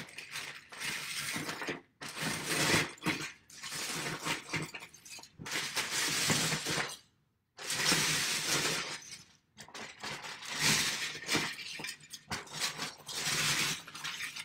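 Plastic Lego bricks clattering and rattling as hands rummage through a bin full of them, in bursts of one to two seconds with short pauses between.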